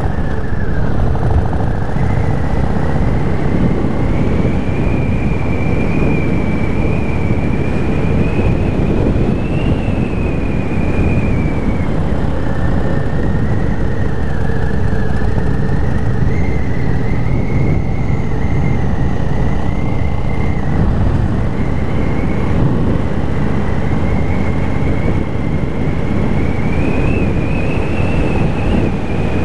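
Cruiser motorcycle's engine running steadily at road speed, heard from the bike itself, with its note drifting gently up and down through the bends, mixed with the rush of wind and road noise.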